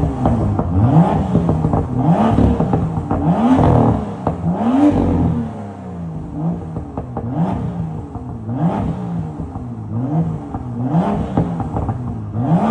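BMW M2 F87's straight-six engine revved in short blips about once a second, each rev rising and falling, through its freshly repaired M Performance rear silencer, whose loose internal baffles were welded back in and repacked with new wool. The blips are higher and louder for the first few seconds, then smaller.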